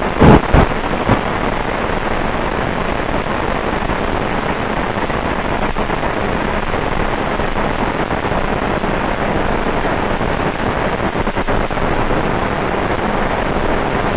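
Steady hiss of static from the audio channel of an analog FPV video receiver, with no motor or propeller tone in it. Three sharp clicks in the first second, the first two loud.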